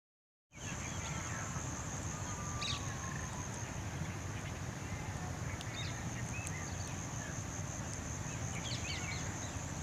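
Outdoor birdsong: scattered short chirps and a few whistled notes from small birds over a steady high-pitched insect drone and low rumbling noise, starting abruptly about half a second in.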